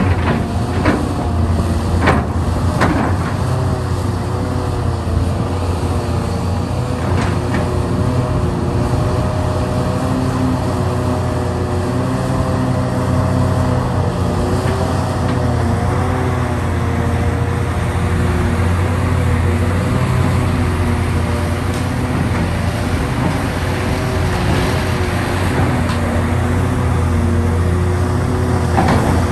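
Hitachi Zaxis 670 excavator's diesel engine and hydraulics working under load while digging: a steady low drone with a wavering whine over it. A few sharp knocks of rock against the bucket come in the first few seconds and once more a few seconds later.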